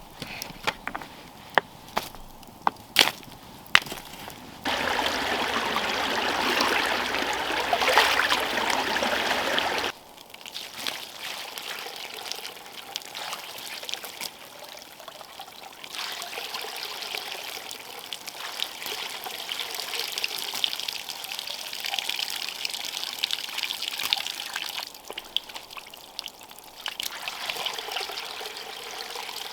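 A few sharp knocks, then water pours heavily for about five seconds and stops abruptly. After that comes a softer, uneven trickling and dribbling of water.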